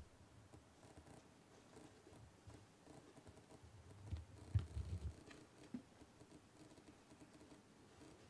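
Faint, scattered light tapping and scratching of a leopard gecko's feet moving on a paper towel. A few soft low thumps come about four to five seconds in.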